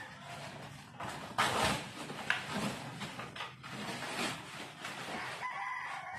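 Cardboard shipping box scraping and rustling against a fridge as it is worked loose, with a sharp knock about two seconds in.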